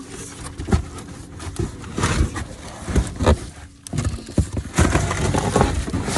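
Irregular knocks, clunks and rustling of discarded furniture and objects being shifted and handled inside a dumpster.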